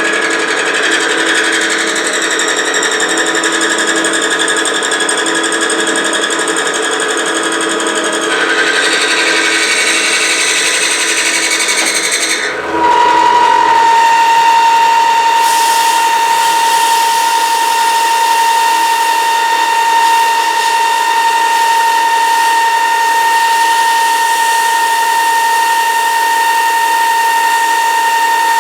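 Milling machine cutting with a 3/4-inch high-speed-steel end mill, a steady whine made of several tones. About halfway through the sound dips briefly, then settles into one strong, steady high tone.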